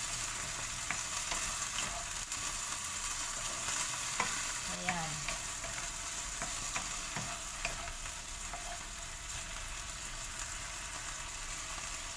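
Boneless chicken breast pieces sizzling and spattering in oil in a nonstick frying pan, stirred and turned with a wooden spatula that lightly scrapes and taps the pan.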